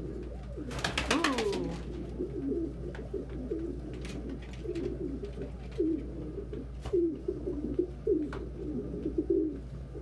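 Pigeons cooing, a string of short low coos one after another from a male courting a hen. A brief louder burst about a second in.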